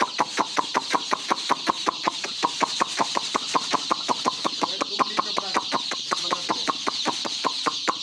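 A large flock of chicks peeping in a continuous high chorus, over a fast, even run of sharp clicks, about six a second.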